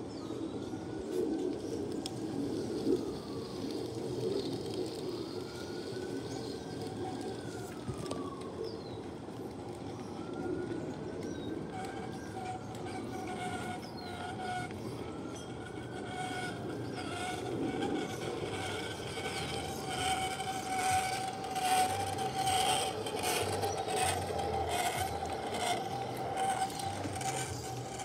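Large-scale garden railway freight train rolling past on outdoor track: a steady rumble of wheels and a steady whine that grows louder as the cars pass, with many clicks of wheels over the track in the last third. A distant siren wails, rising and falling, through the first half.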